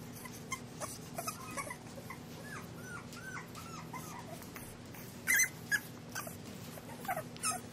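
English bulldog puppies whimpering: a run of short, high whines in the first few seconds, then louder, sharper yips about five seconds in and again near the end.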